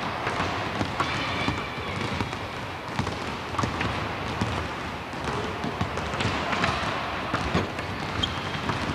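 Handballs bouncing and being caught on a wooden sports-hall floor: irregular sharp thuds, about one or two a second, over the general noise of a hall.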